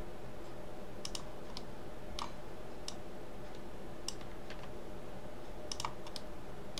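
Computer mouse and keyboard clicks: a dozen or so short, sharp clicks at uneven intervals, some in quick pairs, over a faint steady hum.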